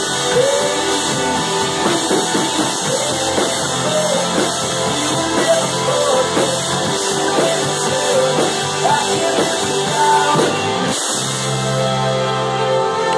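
Live rock band (electric guitars, bass, drum kit and keyboard) playing the closing bars of a song. About eleven seconds in the drums break off and a final chord is held and rings on.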